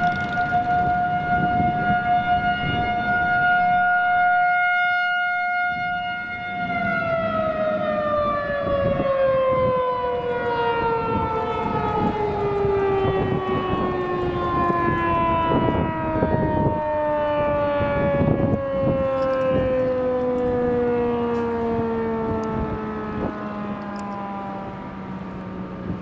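Federal Signal 2001-SRN rotating civil-defense siren sounding a steady tone that fades briefly and returns as the horn turns, then winding down in one long falling pitch as it shuts off at the end of its test.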